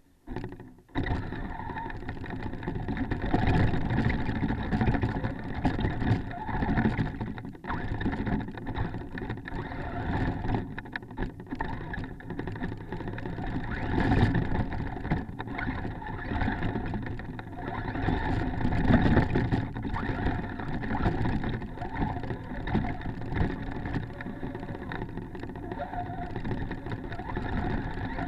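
Traxxas Stampede RC truck driving through snow: its electric motor and drivetrain running under changing throttle, with the tyres churning snow, heard from a camera riding on the truck. The sound starts suddenly about a second in and swells and eases as the throttle changes.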